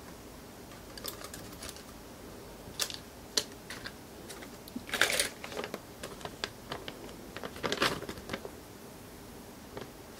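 Scattered clicks and taps of plastic drone propellers being handled, then the crinkle of a plastic propeller bag being handled, loudest about five seconds in and again near eight seconds.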